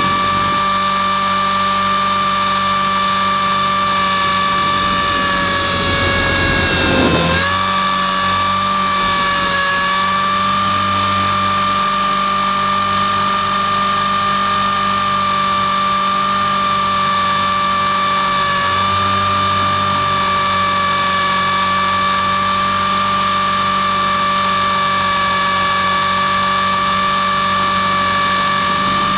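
Onboard sound of a T-Rex 450-clone RC helicopter in flight: the electric motor, gears and rotor make a steady high whine. About six to seven seconds in, the pitch dips briefly and the sound swells, then it settles back to the steady whine.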